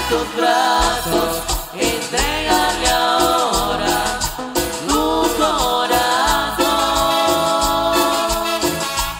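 Male voices singing a Spanish-language religious song in harmony into microphones, with long held notes, backed by a live band with trumpets and percussion.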